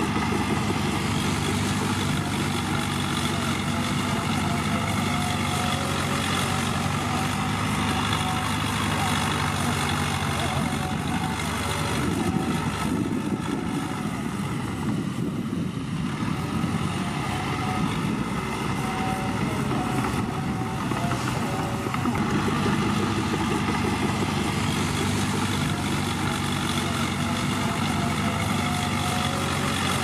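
Heavy diesel engines of a tipping dump truck and crawler bulldozers running steadily. For about ten seconds midway the sound turns rougher and less even, then settles back.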